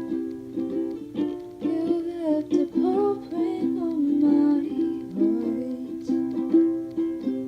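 Ukulele playing an instrumental passage of a gentle original song, with a wordless vocal melody gliding over it through the middle.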